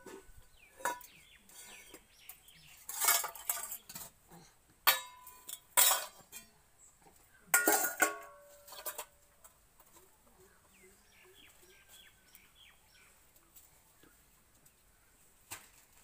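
Stainless-steel bowls and a lid clanking and ringing as a toddler bangs and drops them on a hard floor: a string of sharp metal clangs in the first half, the loudest about five to eight seconds in, then it goes quieter.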